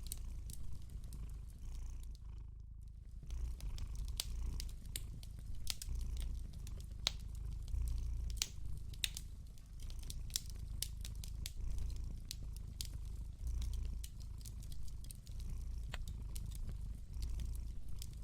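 Domestic cat purring close up, a low rumble that swells and eases every second or two, with the scattered pops and crackles of a wood fire over it.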